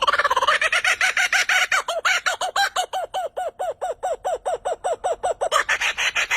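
A rapid, even series of short clucking bird-like calls, about six a second, each note rising and falling in pitch. The calls turn brighter and harsher about five and a half seconds in.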